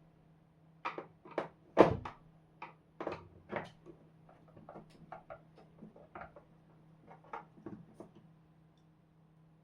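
Irregular clicks and knocks of hard objects being handled and set down on a workbench, the loudest a single knock about two seconds in, over a faint steady low hum.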